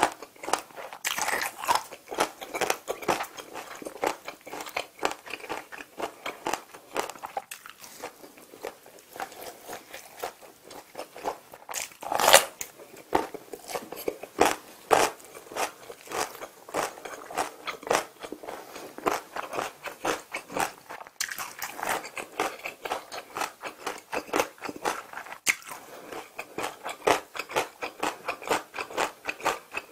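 Close-miked chewing of a mouthful of sauced chicken, with many quick, wet, crunchy clicks and one louder crunch about twelve seconds in.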